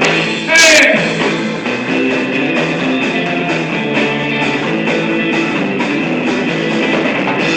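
Instrumental break of a song: guitar playing steady rhythmic chords with a beat, with a brief, louder, high sliding sound about half a second in.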